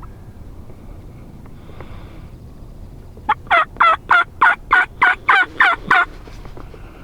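Wild turkey yelping: a run of about ten quick yelps, each note breaking from high to low, starting about three seconds in.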